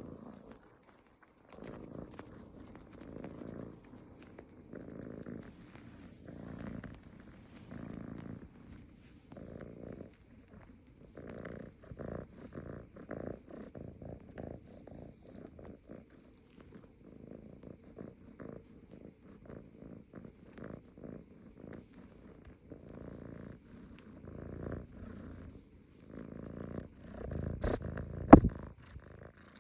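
Calico cat purring close up, the purr swelling and fading in waves about every second and a half with each breath. A single sharp click or tap sounds near the end.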